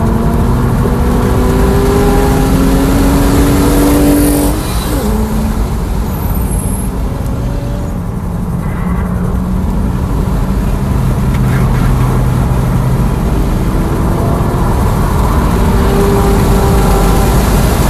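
Tesla Model S Plaid on track, its electric drive motors whining under power over steady road and wind noise. The rising whine breaks off about halfway through the corner, then builds again as the car accelerates down the straight.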